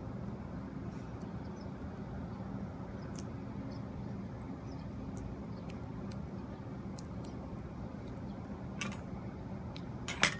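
Steady low hum in the background, with faint small taps of fingertips pressing tape onto a clear plastic sheet, and a sharp crackle of the plastic sheet near the end as it is picked up.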